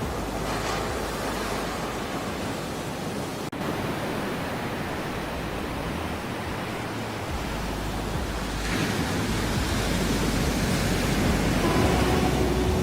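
Ocean surf: a steady wash of breaking waves that swells louder about two-thirds of the way through. There is a split-second dropout about a third in, and faint held musical notes come in near the end.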